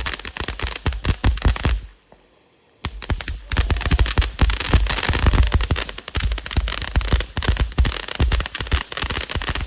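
Fireworks going off in a rapid, dense string of pops and crackles. A near-silent break of about a second comes about two seconds in, then the crackling resumes.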